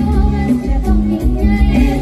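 Live band music played loud through stage speakers, with a woman singing into a microphone over a steady bass beat.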